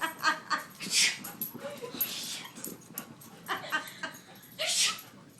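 Dog whimpering and yipping in short, high cries, worked up and pouncing. Two loud, breathy bursts come about a second in and near the end.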